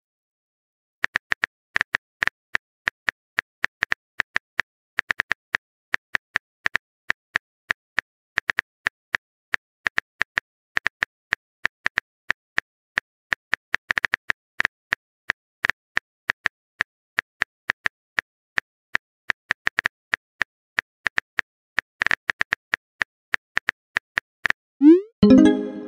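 Phone keyboard typing clicks: a fast, uneven run of short taps as a text message is typed out letter by letter. Near the end a short pop that rises in pitch, the message-sent sound.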